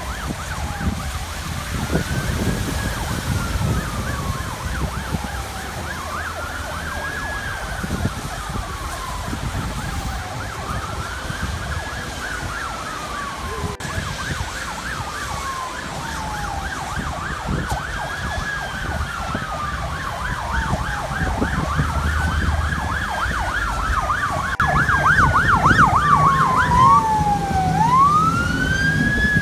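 Emergency vehicle sirens wailing, rising and falling about every four to five seconds. At times a second siren yelps quickly over the wail, and near the end it switches to a rapid warble before wailing again.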